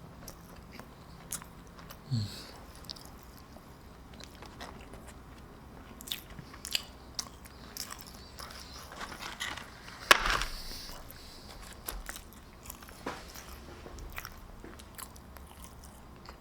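A person chewing food close to the microphone, with small wet mouth clicks and a brief low hum about two seconds in. A louder crunch or crackle comes about ten seconds in.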